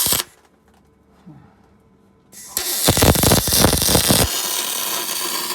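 A welding arc on aluminium. After a brief hiss it strikes about two and a half seconds in and crackles loudly for nearly two seconds, then settles into a steady hiss that cuts off sharply at the end.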